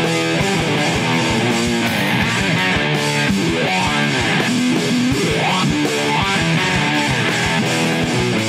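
Rock band playing electric guitar over a steady drum beat, with a rising guitar slide about halfway through.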